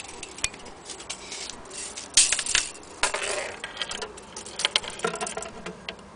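Steel tape measure rattling, clicking and scraping against a wooden case as it is handled and laid along the inside, with two louder scraping bursts near the middle.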